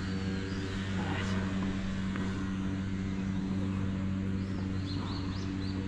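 Steady low machine hum, like an engine or other machinery running, with a few faint high chirps over it.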